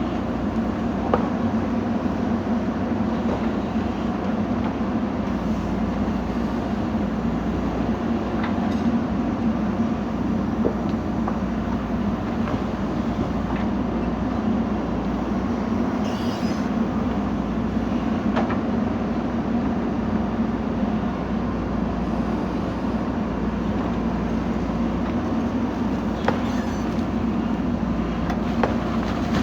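Diesel engine of a JCB 3DX backhoe loader running steadily under digging load, with a few light knocks here and there.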